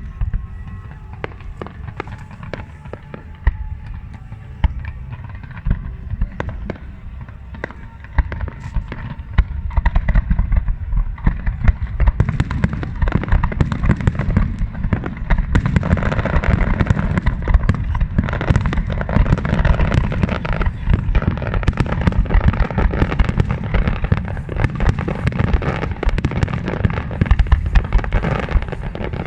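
Fireworks display: a dense, continuous run of bangs and crackling. It grows louder and busier about ten seconds in and is heaviest through the second half.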